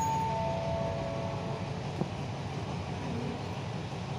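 State Railway of Thailand passenger coaches rolling past the platform with a steady rumble of wheels on rails. There is a brief squeal in the first second and a single click about two seconds in.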